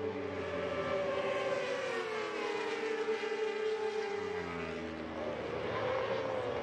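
Several 600cc-class racing sport bikes running at high revs as they pass one after another. Their engine notes drop in pitch about two seconds in and climb again near the end.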